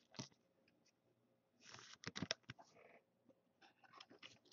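Faint rustling and clicking of trading cards and a plastic card holder being handled, in a few short bursts, the most noticeable about two seconds in.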